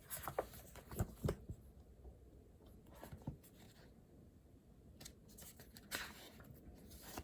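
Small handling sounds of study materials: a few short, light clicks and knocks with faint rustling in between.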